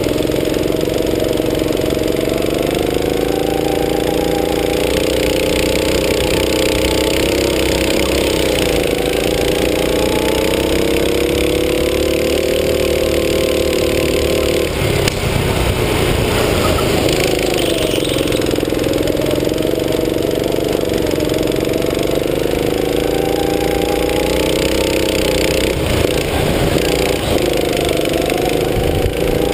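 Go-kart engine running under throttle, its pitch rising and falling as the driver speeds up and slows. About halfway through, the engine note drops away briefly, then climbs again.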